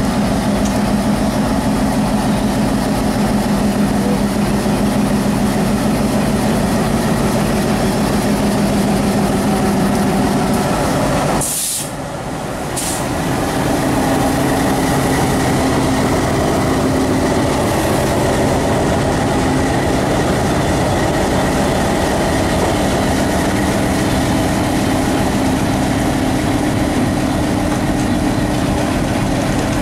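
Diesel locomotive's engine running steadily as it moves slowly past at close range, shunting with passenger coaches in tow. There is a brief drop in level with two short clicks about twelve seconds in, and after that the engine note sits a little higher.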